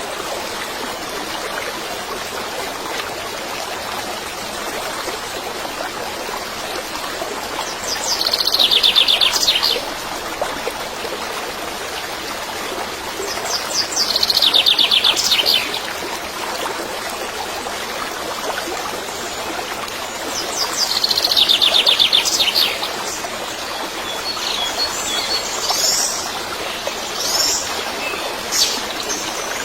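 A bird singing a fast, descending trill three times, about six seconds apart, over the steady rush of running water; several shorter chirps follow near the end.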